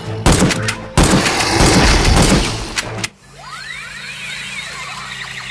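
About three seconds of loud crashing and thumping noise, then an abrupt cut to a battery-powered toy projector gun's electronic sound effect: repeated rising and falling sweeping tones over a steady hum.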